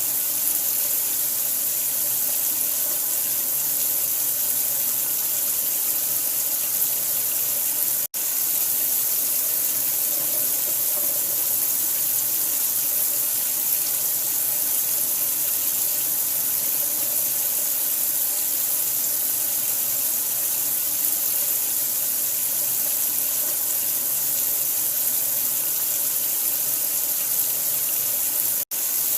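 Steady running water, an even rushing hiss, cutting out for an instant twice: about eight seconds in and near the end.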